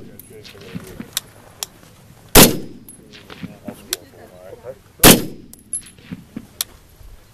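Rifle shots fired one at a time at a steady pace: two loud reports about two and a half seconds apart, each ringing out briefly. Fainter cracks and clicks come in between.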